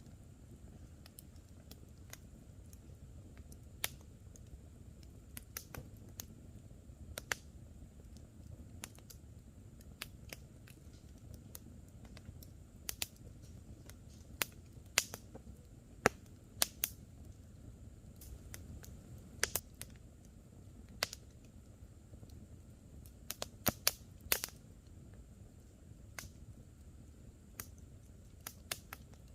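Wood campfire crackling, with irregular sharp pops and snaps scattered over the low, steady sound of the burning fire.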